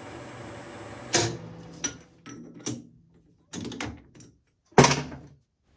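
Metal clicks and knocks as a piston is handled in a lathe's four-jaw chuck, with the loudest clack near the end. Before them, a steady hum with a thin high whine cuts off suddenly about a second in.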